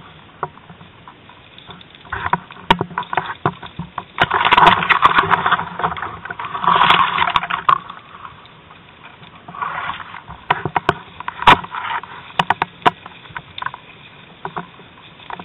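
Dry brush and tall weeds swishing and scraping against a person pushing through them, in several loud bursts about a second long. Scattered sharp snaps and clicks come in between.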